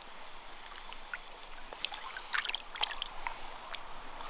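Shallow river water running, with light trickling and scattered small splashes and drips.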